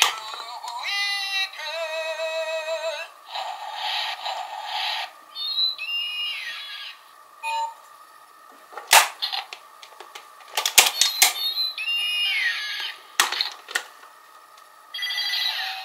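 Zyuoh Changer toy transformation phone playing its electronic sound effects through a small speaker: a warbling synthesized voice early on, falling electronic chirps twice, short beeps and bursts of noise. Sharp clicks of its flip hinge and keys come in between.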